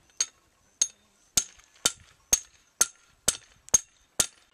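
Sharp metallic knocks, nine in a steady rhythm of about two a second, struck at a metal fitting while lengths of black plastic water pipe are being joined.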